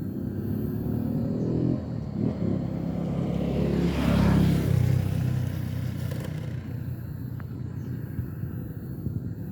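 An engine-driven vehicle passing close by: its engine and rumble build to a peak about four seconds in, then fade away.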